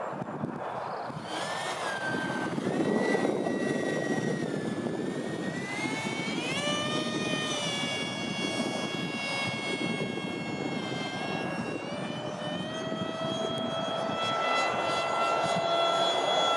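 Electric ducted fan (WeMoTec Midi, six-blade) of a Freewing Eurofighter model jet whining in flight. Its pitch rises about a second and a half in and again about six seconds in, then holds fairly steady over a rushing noise.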